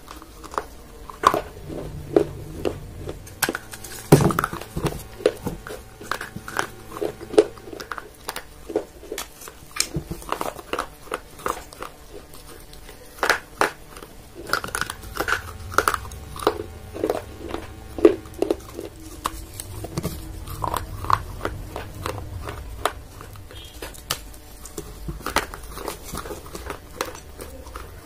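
Sharp, crisp crunches of an unglazed baked-clay pot being bitten and chewed close to the microphone. They come at irregular intervals, a few a second.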